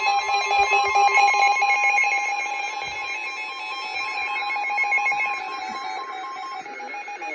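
Emergency Alert System alert tones: several steady electronic tones sounding together with a fast warbling beep, announcing an emergency warning broadcast, here a flash flood warning.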